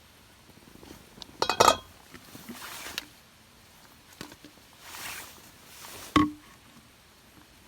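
Camping dishes or cookware clinking and knocking as they are handled: a quick cluster of clinks, soft rustling, then one sharp knock with a short ring.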